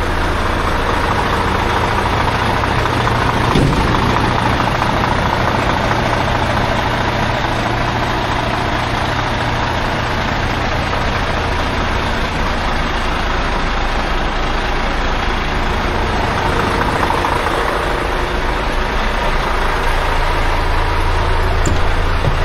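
2025 Volvo VN semi-truck's diesel engine idling steadily, with a brief click about three and a half seconds in.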